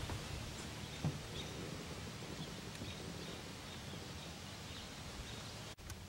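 Quiet outdoor ambience: a faint steady hiss with a few faint high bird chirps and a soft knock about a second in.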